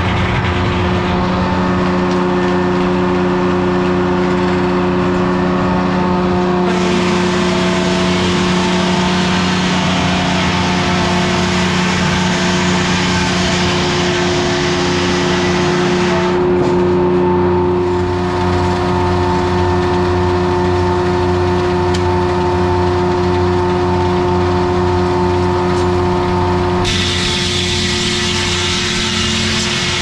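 1953 Detroit Diesel two-stroke power unit running steadily, driving an old Corley sawmill's belts and circular saw. A loud rushing hiss rides over the engine through most of it, dropping away twice, briefly near the middle and again near the end.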